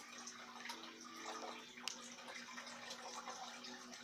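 Faint steady trickle of water with a low steady hum and a few small drips, from a fish tank's filter running.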